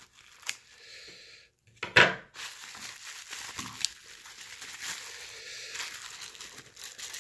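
Plastic bubble wrap crinkling and rustling as it is handled and pulled open, with a sharp scissor cut through the wrap about two seconds in.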